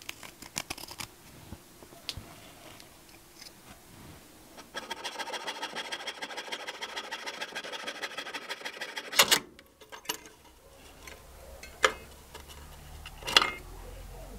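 Fine-bladed fret saw cutting thin beer-can metal: a few seconds of rapid rasping saw strokes in the middle, with scattered light clicks and taps before it and several sharp clicks after.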